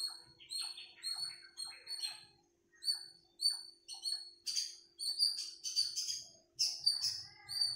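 Birds chirping: many short, high, slightly falling calls, several a second, growing louder and busier about halfway through, over a faint steady low hum.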